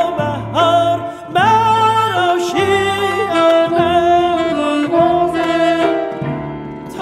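Background music from a Persian song: a melody with vibrato over held bass notes.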